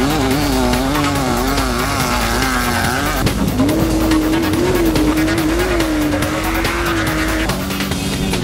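Off-road race car engine running hard as it is driven over rough desert ground. Its pitch wavers rapidly up and down at first, then holds steadier from about halfway.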